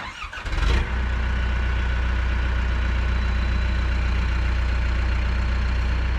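Backhoe diesel engine starting up: an uneven burst for under a second, then it settles into a steady idle.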